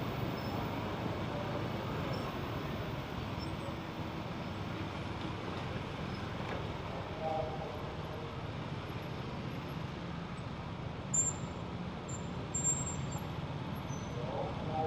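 Motorcycle riding through city traffic: a steady engine hum with road and wind noise. About eleven and thirteen seconds in come a few short, high-pitched chirps.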